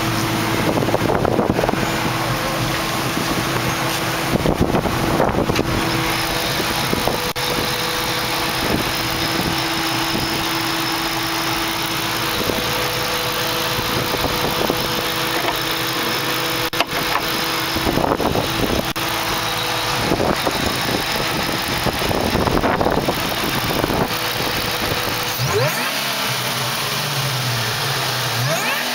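Supercharged Ford SVT V8 idling steadily from behind the car, with wind buffeting the microphone. Near the end the engine pitch rises as it is revved.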